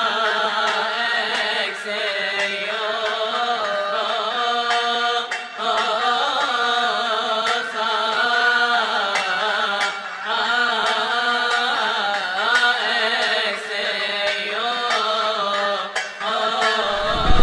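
Coptic liturgical chant sung by men's voices, the melody sliding between notes over a steady low held note.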